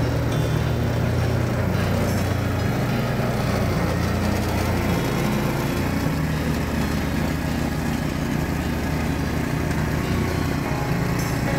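Craftsman two-stage snowblower's small gasoline engine running steadily with the auger turning, its low hum shifting slightly in pitch a few times.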